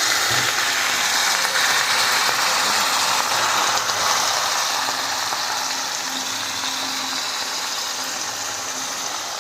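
Cabbage, meat and freshly poured ham hock stock sizzling hard in a hot pan over medium-high heat, a steady crackling hiss that eases off slowly as the liquid cooks down.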